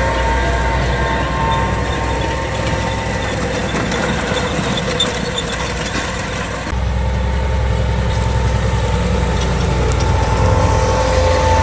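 Farm machinery engine running steadily, with a constant low drone and a few steady whining tones. About seven seconds in, the sound changes abruptly to a heavier low drone.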